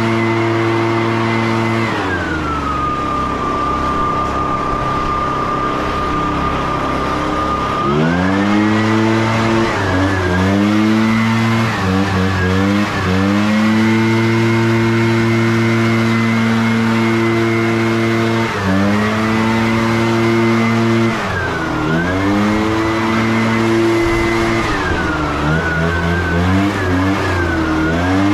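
Gas leaf blower running hard with a high fan whine. About two seconds in it throttles down to idle, and the pitch of both engine and whine drops. About six seconds later it revs back up, then dips and recovers several times as the throttle is eased and squeezed again.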